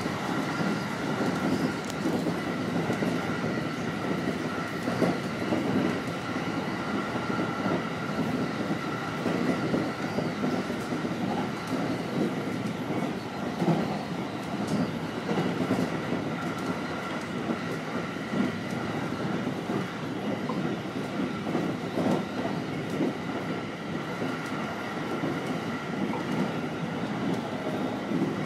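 Electric commuter train on the Utsunomiya Line running along the track: a continuous rumble of wheels on rail with a steady high tone over it.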